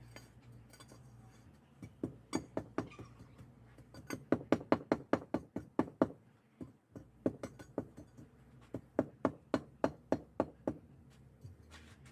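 Rapid sharp knocks of a hand tool striking, about five a second, in four bursts with short pauses between.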